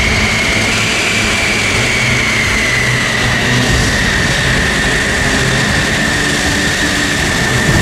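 F-16C jet engine running at ground idle: a steady rushing noise with a high whine that slowly drops in pitch.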